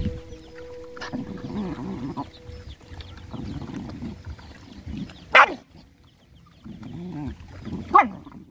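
Several dogs eating from one shared bowl: chewing and lapping, with low growls coming and going between them. Two short, loud yelps fall in pitch, about five and a half seconds and eight seconds in.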